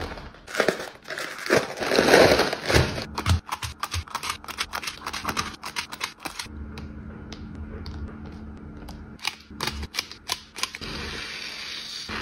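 Plastic packaging crinkling as it is handled, then runs of sharp clicks and snips as small plastic bags of diamond painting resin drills are cut open with scissors.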